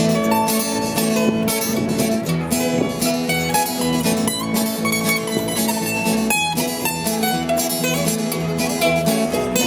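Acoustic string band playing an instrumental passage: a strummed acoustic guitar and a picked mandolin over upright bass.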